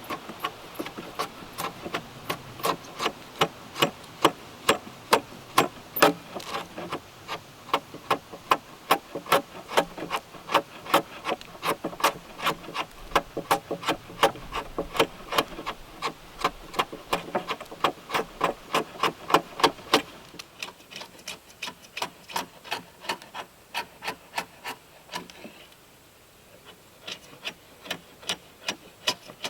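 Mallet driving a chisel into a timber beam, chopping out a mortise with steady blows about three a second. The blows turn softer about two-thirds of the way through, with a brief pause near the end.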